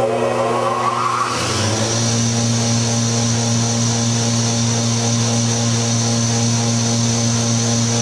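Wood shaper's 3-horsepower electric motor on its slow pulley setting, spinning a neodymium-magnet rotor. Its pitch rises over the first second or so, then it settles into a steady hum with a high whine.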